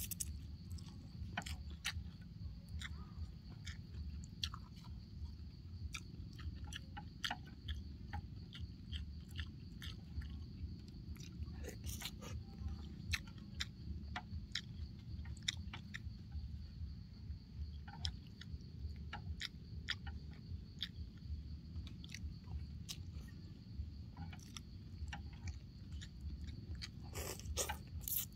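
A person eating kuy teav noodle soup with chopsticks: wet chewing and slurping of noodles, with many small sharp mouth and chopstick clicks, and a louder cluster of slurps near the end.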